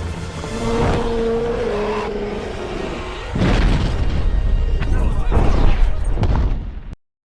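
Film soundtrack of music and sound effects. Held tones play for the first few seconds, then a heavy low boom and rumble breaks in about three seconds in. Everything cuts off abruptly to silence near the end.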